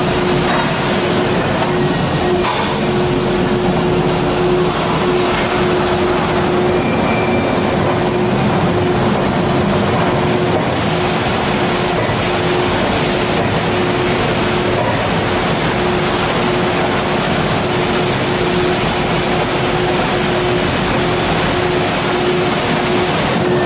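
Peddinghaus BDL 1250/9A structural steel beam drilling line running: a loud, steady mechanical noise, with a steady tone that keeps cutting in and out, while a steel beam is carried along the roller conveyor.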